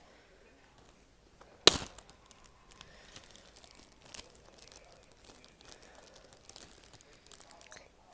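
Crinkling and rustling of a clear plastic zip-top bag being handled and opened, with one loud sharp snap about two seconds in.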